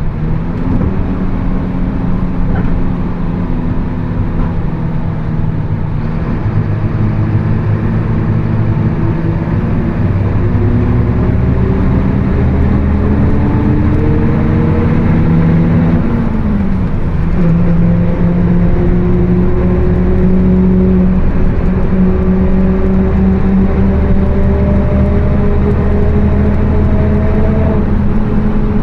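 Mercedes-Benz OF 1724 bus under way, its four-cylinder diesel pulling while a loud differential whine climbs steadily in pitch with road speed. The engine note dips at a gear change a little past the middle, then both carry on. The howling differential is the known fault on this bus.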